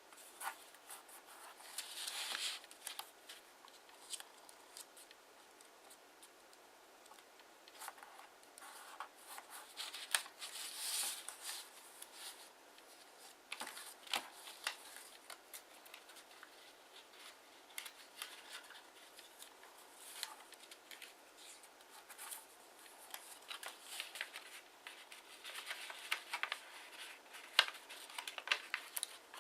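Kraft origami paper being folded and creased by hand: irregular rustles and crisp crackles as the paper is turned and the folds are pressed flat, with short pauses between.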